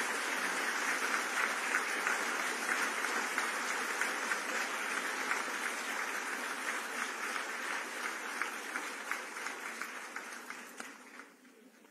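A large audience applauding: a dense, steady patter of many hands clapping, which dies away near the end.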